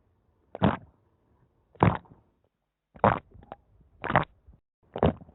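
Water-in-the-ear sound effect: muffled, gurgling sloshes of water heard as if inside the ear, five short bursts about a second apart.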